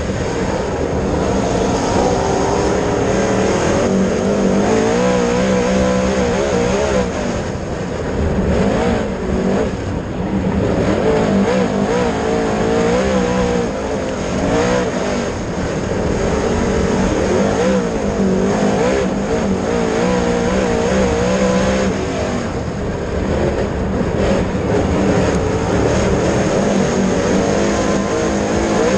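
Dirt late model race car's V8 engine running hard on track, its pitch rising and falling again and again as it revs up and backs off.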